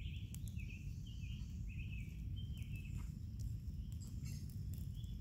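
A songbird singing a quick run of short, high chirps, over a steady low rumble.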